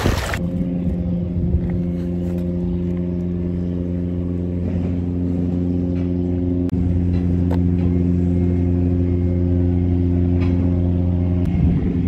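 An engine running steadily, a constant low hum at an unchanging pitch.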